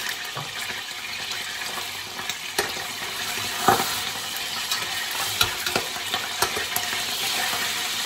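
Marinated beef joint sizzling steadily as it browns in oil in a large stainless-steel pot, with scattered spattering pops. There are a few clicks of metal tongs against the pot as the meat is handled, the sharpest about three and a half seconds in.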